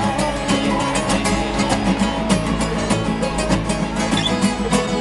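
Several acoustic guitars strummed together in a quick, steady rhythm.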